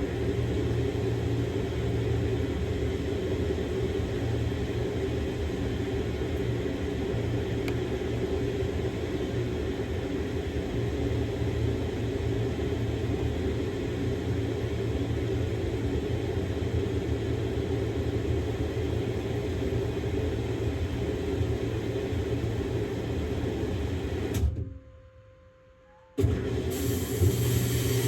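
Samsung Grande washing machine running a quick-wash cycle with a padded jacket inside, a steady motor-and-drum hum. Near the end it stops abruptly for about a second and a half, then starts again.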